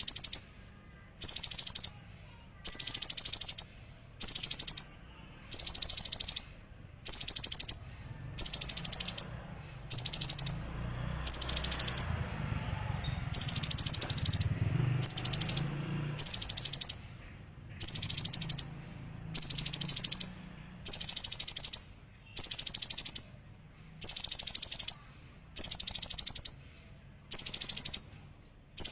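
Konin bird repeating a high, buzzy, rattling trill, one short burst about every second and a half. It is the golden-grasshopper ('belalang emas') phrase the bird has taken into its song. A faint low rumble swells under the trills midway through.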